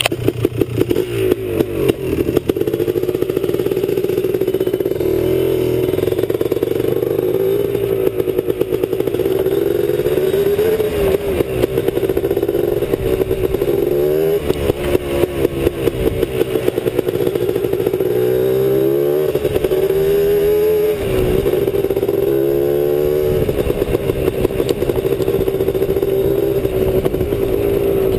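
Honda TRX250R quad's two-stroke single-cylinder engine running under way, its pitch rising and falling several times as the throttle is opened and closed.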